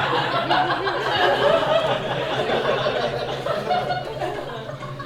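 Live theater audience laughing, many voices together, loudest about a second and a half in and dying away near the end.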